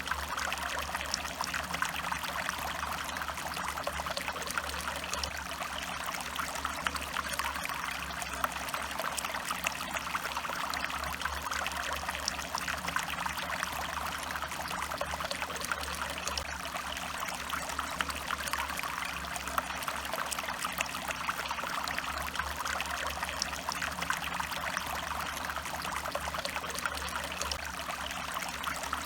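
Stream water flowing and trickling steadily, an even splashing rush with no change.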